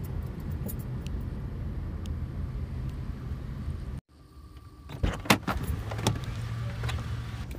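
Steady low hum inside a car, then, after a brief drop-out about halfway, several sharp clicks and knocks as the occupant works the inside door handle to get out, with the low hum coming back behind them.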